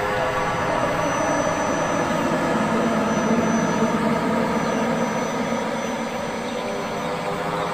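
Dark background music: a sustained, rumbling drone like a jet engine, swelling around the middle and easing toward the end.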